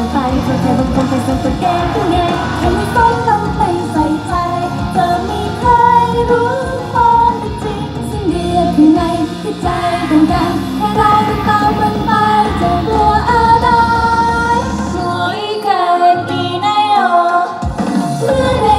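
Idol-group pop song with female voices singing over a full backing track, played loud through stage loudspeakers. About fifteen seconds in, the bass and drums drop out for a couple of seconds, leaving only the higher voices and melody before the full band returns.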